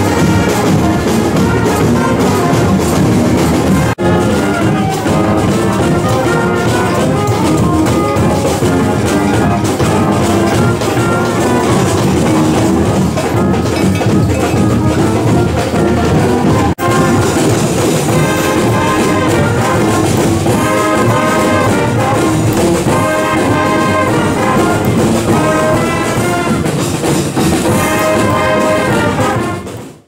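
Street brass band playing live, with sousaphones carrying the bass line under the horns and a snare drum. Brief breaks where the recording is cut about 4 and 17 seconds in; the sound falls away at the very end.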